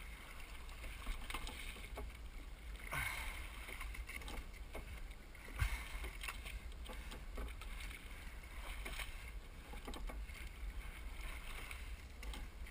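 Racing double scull being rowed easily: water swishing along the hull and the oar blades working the water, with a few sharp knocks, the loudest about halfway through, over a low rumble.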